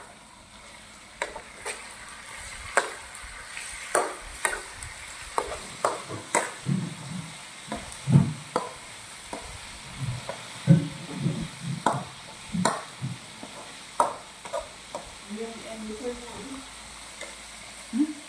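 Irregular crisp clicks and crackles as a macaque breaks apart and chews cooked insects, with a few soft low thuds in the middle.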